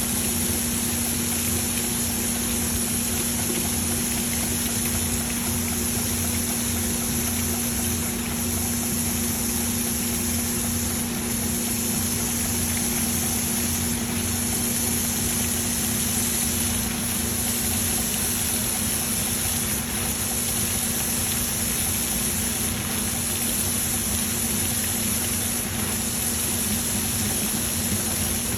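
Grinding machine running steadily while grinding a live centre shaft: a constant motor hum with a steady high-pitched hiss above it.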